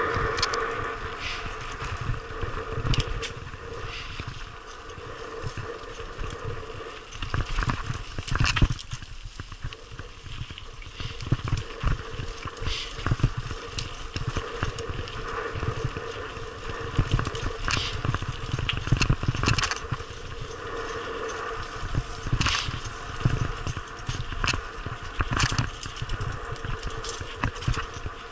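Mountain bike descending a rough gravel track, heard from a helmet-mounted camera: tyres crunching over loose stones, with frequent irregular knocks and rattles as the bike hits bumps, over a steady low rumble of wind on the microphone.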